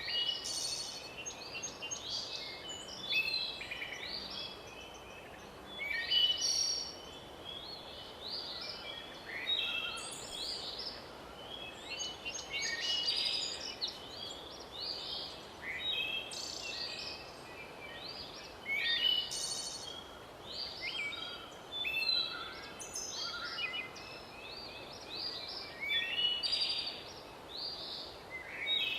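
Several songbirds singing at once, with overlapping chirps and warbled phrases throughout, over a steady faint background hiss.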